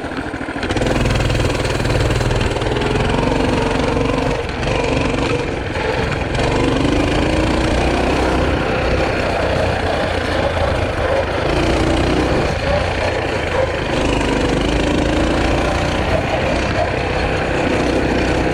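Small engine starting about half a second in, then running steadily, its pitch rising and falling with the throttle.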